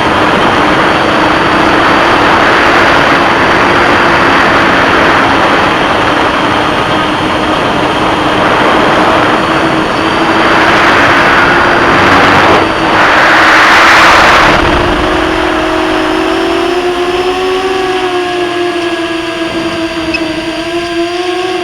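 FPV quadcopter's electric motors and propellers whining in flight, with a loud rush of air that swells around the middle. Near the end the motor pitch rises and falls as the throttle changes.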